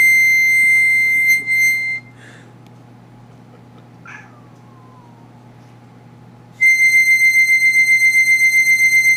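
A harmonica holds one high, steady note that stops about two seconds in. Around four seconds in a cat gives a single meow that falls in pitch. The same harmonica note returns near the end with a fast wavering, about five pulses a second.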